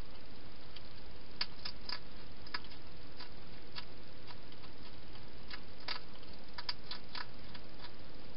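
Wild hedgehog feeding at a bowl inside a clear plastic feeding box: irregular sharp clicks, some in quick clusters, over a steady background hiss.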